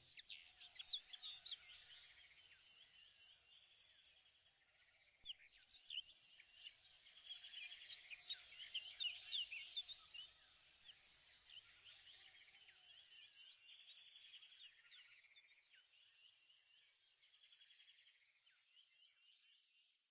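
Faint birdsong: many short chirps and whistles, busiest in the middle, over a fast, even trill, fading out near the end.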